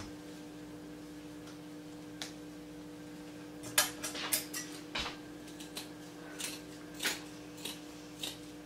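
Scissors snipping through deco mesh ribbon and the mesh being handled: scattered short clicks and rustles, mostly from about four seconds in, over a steady low hum.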